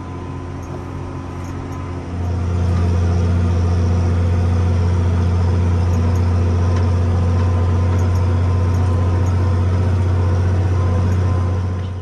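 Farm machine's engine running steadily, growing distinctly louder about two seconds in and then holding, before stopping abruptly at the end.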